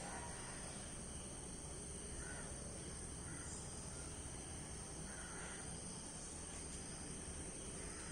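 Faint outdoor ambience: a steady high-pitched insect drone, with a few faint distant bird calls.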